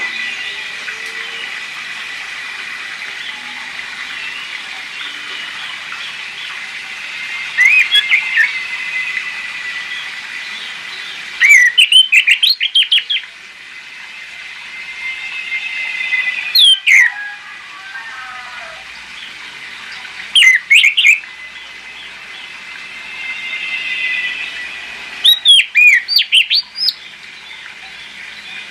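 Orange-headed thrush singing: a soft, continuous warbling song broken about five times by loud bursts of quick, sharp whistled notes.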